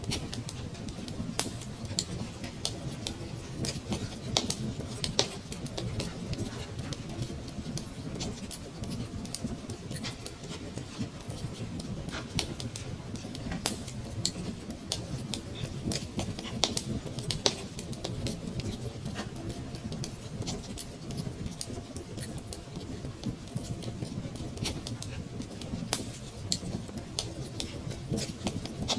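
Wood fire burning in a fireplace: a steady low rumble of flames with irregular crackles and occasional sharper pops.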